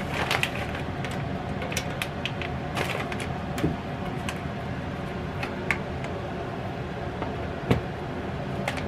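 Steady hum of a switched-on Presto electric kitchen kettle heating, with scattered clicks and knocks of its parts being handled, one louder knock near the end.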